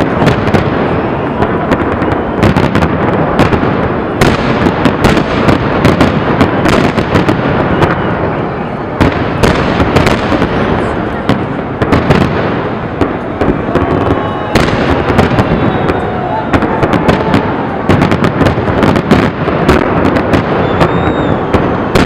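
Fireworks display: aerial shells bursting overhead, with many sharp bangs and crackles in quick succession and no let-up.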